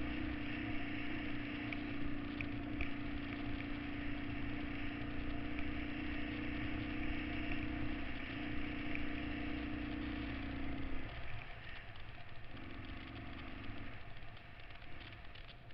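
Vintage Honda XL single-cylinder four-stroke dirt bike engine running at a steady speed on the move. About eleven seconds in it is throttled back, picks up briefly, then eases off to a quieter run.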